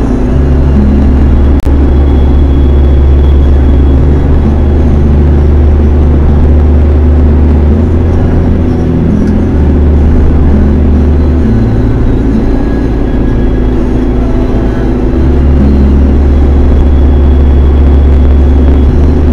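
Car cruising at highway speed, heard from inside the cabin: a loud, steady low rumble of road and engine noise that swells and eases every few seconds. A single sharp click about one and a half seconds in.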